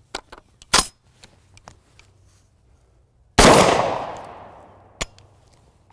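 Genesis Arms Gen12 short-barrel 12-gauge shotgun firing a slug: one loud shot about three and a half seconds in, fading in a long echo over a second or more. A shorter sharp crack comes about a second in, and a brief click near the end.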